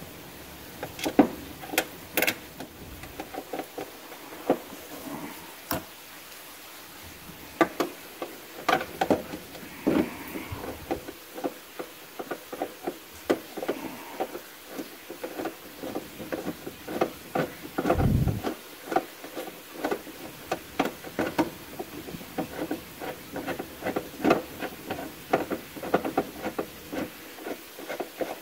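Hand-tool work: a run of irregular sharp clicks and knocks, coming thicker and more evenly near the end, with one dull low thud about two-thirds of the way through.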